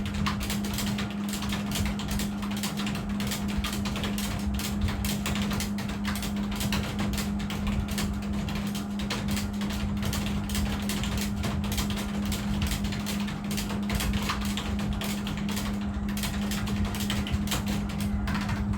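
Fast, continuous typing on a computer keyboard: a rapid stream of key clicks with no pauses. A steady low hum runs underneath.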